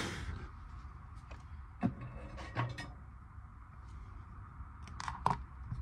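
Light handling sounds on a workbench: a brief rush of noise at the start, then a few separate light clicks and taps, as tools and the solder reel are moved and set down.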